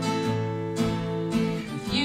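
Two acoustic guitars strummed, with an accordion holding steady chords underneath, in an instrumental passage of a folk song; a strum lands about every half second.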